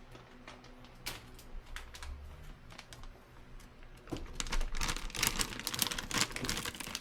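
Scattered light clicks and crinkling, turning into a busy flurry of clicks and rustles about four seconds in.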